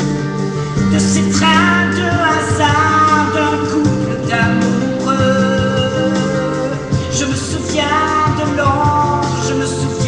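A woman singing a slow French pop ballad with held, gliding notes over a steady instrumental accompaniment.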